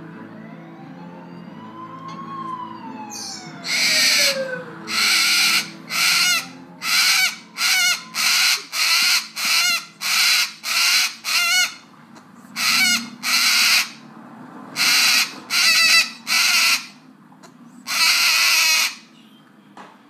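A sulphur-crested cockatoo screeching over and over, about seventeen loud, harsh calls of half a second each, in answer to a siren on the TV. The siren wails up and then down during the first few seconds, before the screeching starts.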